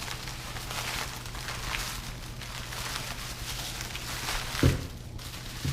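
Plastic packing, bubble wrap, rustling and crinkling as it is handled and unwrapped, with a sharp thump a little before the end.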